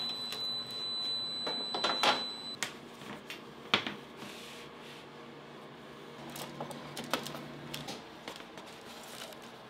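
A metal baking tray scrapes and clatters as it slides out of a convection oven's rack, with a steady high whine that stops about two and a half seconds in. After that come a sharp clank and scattered light metallic clinks as a wire cooling rack is set on a sheet pan and trays are handled.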